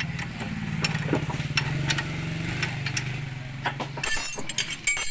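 A motor engine running steadily for about four seconds, with scattered light clicks over it, then stopping; metal tools clinking near the end.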